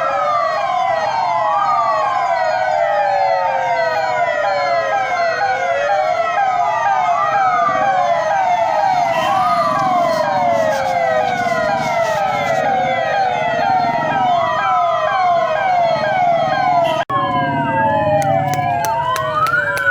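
Several police vehicle sirens sounding at once and out of step with one another: slow rising-and-falling wails overlap with faster yelping cycles. The sound cuts out for an instant near the end.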